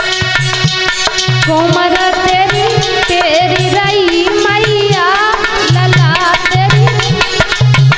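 Devotional folk music: a tabla keeps up a quick rhythm with deep bass strokes under steady held notes. About a second and a half in, a woman's voice comes in singing a long, wavering, ornamented line that fades out around five and a half seconds in.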